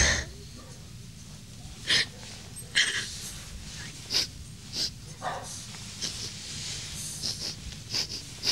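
A small dog held close, sniffing and snorting in about nine short, irregular bursts.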